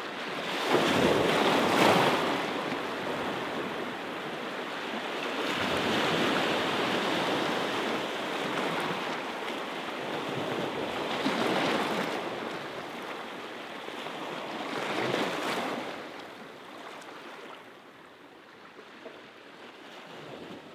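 Sea waves washing onto the shore, the surf swelling and ebbing about every four to five seconds, then fading away over the last few seconds.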